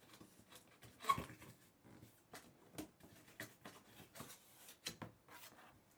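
Packaging being handled and opened: irregular clicks, taps and scrapes, the loudest about a second in.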